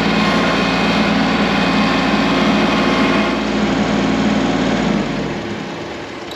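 An engine running steadily, then dying away and stopping about five seconds in.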